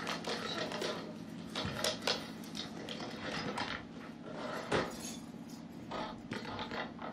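Objects on an office desk clattering and clinking as it is hurriedly rummaged through, with short knocks throughout and a louder knock about five seconds in.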